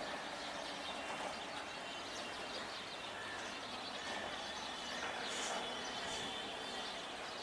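Steady outdoor background noise with small birds chirping now and then.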